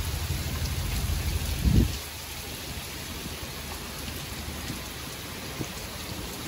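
Steady hiss of rain falling, with faint scattered ticks. A low hum and a thump are heard about two seconds in, before the hiss is left on its own.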